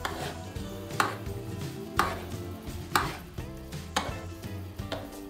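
A metal spoon basting a T-bone steak with melted butter in a frying pan, knocking against the pan about once a second, with background music underneath.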